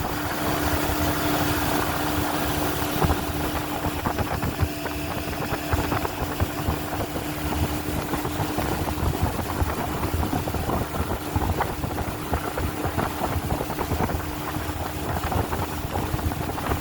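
Motorboat engine running steadily as the boat cruises along the river, with a constant low drone and an even rush of wind and water.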